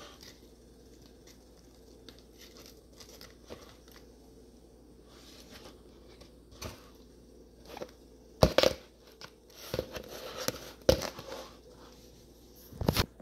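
Clear plastic deli containers of watermelon chunks being handled and packed, with faint handling noises at first, then several louder crinkling plastic clicks and knocks in the second half, the loudest near the end.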